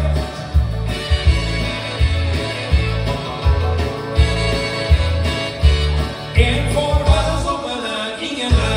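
A song performed live to a backing track with a steady bass beat, the singer's voice amplified through a microphone. The voice drops back partway through and comes in again in the second half.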